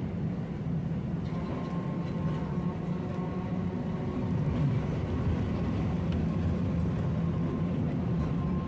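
A vintage Porto tram running along the street, heard from inside the car: a steady low rumble from the wheels and running gear. A faint, steady high tone comes and goes above it.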